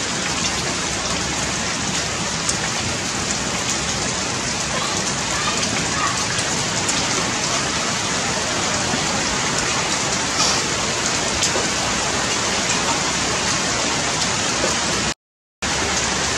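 A steady, even rushing noise, like heavy rain, with a few faint ticks; it cuts out completely for about half a second near the end.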